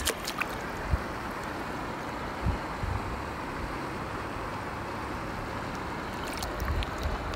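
Shallow river water running steadily over a riffle, an even rushing hiss, with a few low bumps on the microphone. Near the end come small splashes and clicks as a trout is let back into the water.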